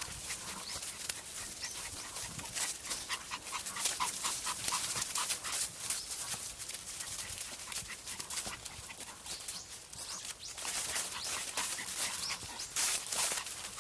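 Maltese dog panting as it walks, with footsteps scuffing on a dirt trail.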